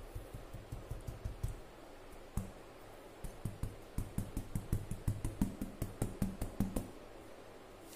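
Quick, sharp knocks on a thin plywood board, tapped to knock excess silver glitter off its glued surface onto newspaper. The knocks come about five a second in two runs, with a pause of about two seconds after the first run.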